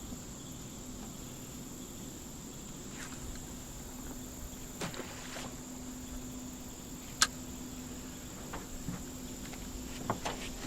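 Steady high-pitched drone of crickets over a low steady hum, broken by a few scattered sharp clicks and knocks, the sharpest about seven seconds in.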